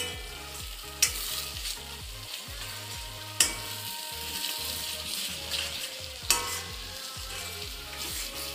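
Masala paste sizzling in a steel kadai as a steel spoon stirs and scrapes it. The spoon clinks sharply against the pan four times.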